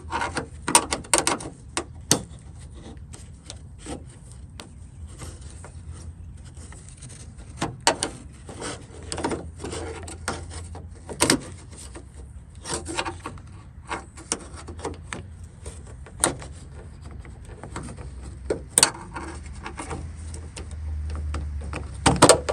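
Scattered clicks, taps and scrapes of small metal parts being worked: the retaining tabs that hold an old Ford Super Duty door lock cylinder to its lever being bent back so the lock can be pulled off. A low hum runs underneath and grows louder near the end.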